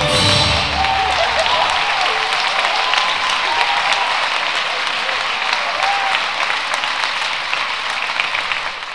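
Audience applauding steadily, with a few voices calling out, as the dance music's last notes die away in the first second or two.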